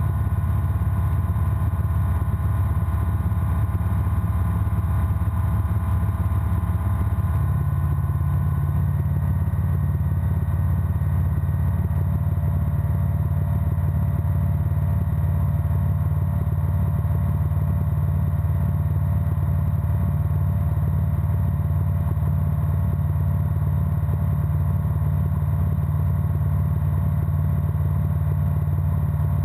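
Breezer ultralight aircraft's piston engine and propeller droning steadily in cruise flight, the tone shifting slightly about seven seconds in.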